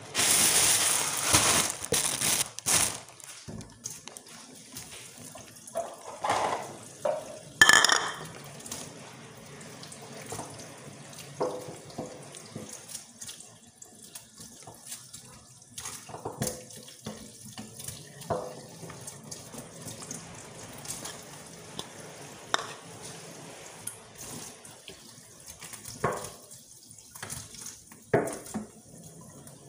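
Kitchen tap running into a sink while vegetables are rinsed and handled. There is a loud gush of water in the first few seconds, then a thinner flow with scattered splashes and knocks, the sharpest about eight seconds in.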